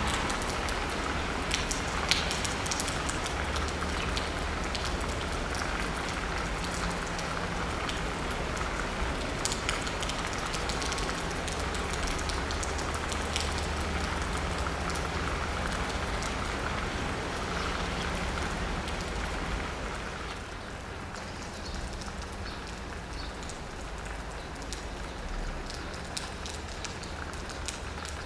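Steady city rain, with drops pattering on asphalt and a roof and a low rumble of distant traffic underneath. Everything gets a little quieter near the end.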